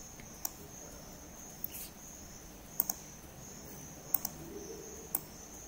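Computer mouse clicking about five times, sharp single clicks with two quick double clicks, over a steady high-pitched buzz in the background.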